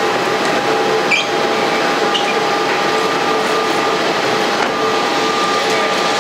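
Steady jet-engine rush and whine from an airliner taxiing at low power, with a few held whining tones under the noise and a brief high chirp about a second in.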